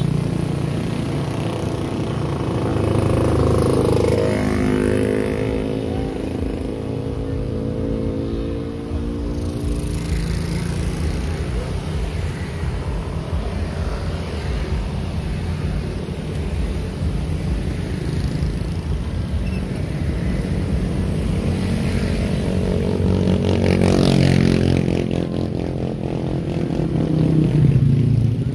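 Motorcycles and cars of a convoy driving past with their engines running. Vehicles pass close about four seconds in and again near the end, the engine pitch dropping as they go by.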